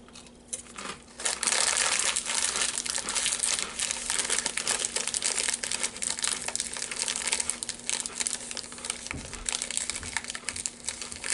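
Hand-cooked potato crisps being chewed: a dense, continuous crunching crackle that starts about a second in.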